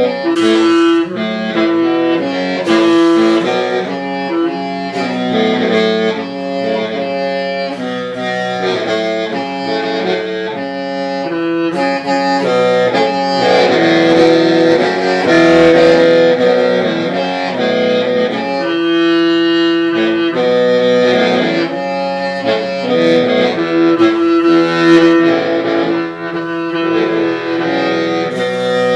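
Hmong qeej (lusheng), a bamboo free-reed mouth organ, playing a tune. Several reed tones sound together and shift in short steps over low held notes.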